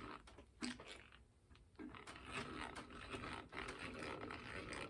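Hand crank drill boring a hole in wood, a faint scratchy, grainy cutting noise. It pauses briefly about a second in, then resumes.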